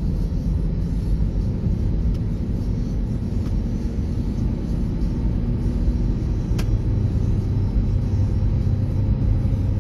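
Steady low rumble of road and engine noise heard inside a moving car's cabin at cruising speed.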